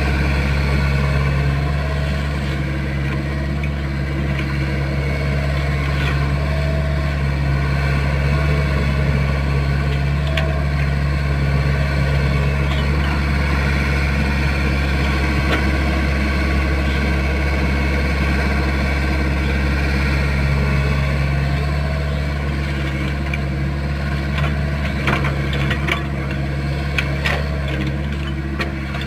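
Excavator's diesel engine running steadily at an even, low hum, with a few short knocks or clicks near the end.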